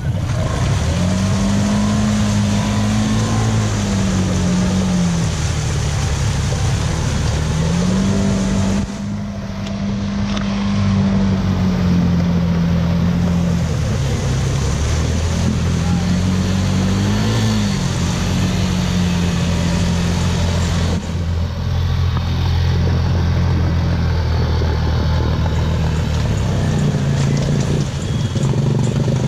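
ATV engine running steadily, revving up and holding for a few seconds, then easing off, several times over.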